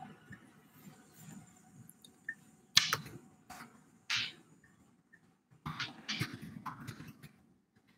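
Scattered clicks and taps close to the microphone over a faint steady hum: a sharp one about three seconds in, then a cluster of them near the end.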